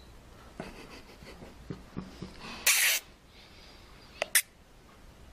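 A short, sharp hiss, about a third of a second long, about halfway through, followed by two quick clicks near the end.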